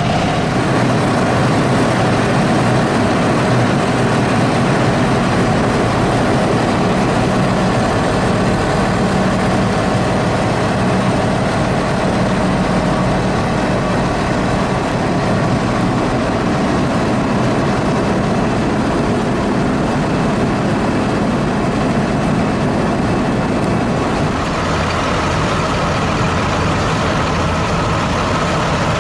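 Several large farm tractors' diesel engines idling together in a steady, continuous rumble; the engine note shifts a little near the end.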